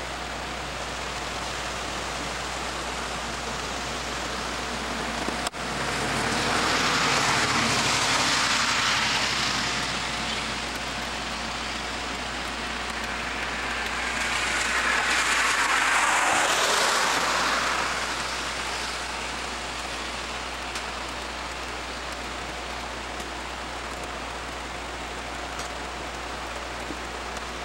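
Two vehicles drive past in turn on a wet bridge deck, their tyre hiss swelling and fading over a few seconds, one about six seconds in and another about fourteen seconds in, over a steady hiss. A sharp click comes just before the first one.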